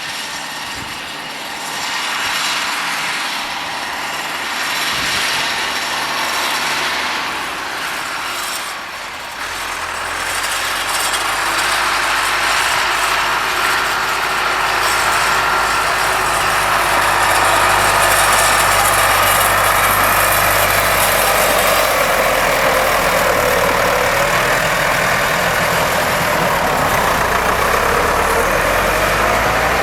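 Diesel engine of harvest machinery working in a wheat field, a combine or a tractor carting grain. It grows louder about a third of the way in, then runs steadily, with a whine that dips and rises again in pitch near the end.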